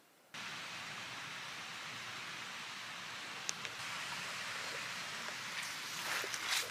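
Footsteps and rustling through wet tussock and moss on a boggy track, over a steady hiss that starts suddenly just after the start. There are a few sharp clicks around the middle and louder crackling steps near the end.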